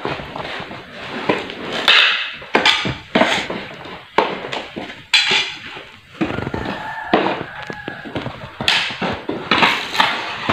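Irregular knocks, scrapes and clatter of wooden crate slats being prised open with a metal hand tool.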